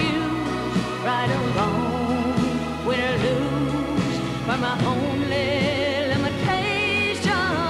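Women singing a slow song into handheld microphones over instrumental accompaniment, holding long notes with vibrato near the end.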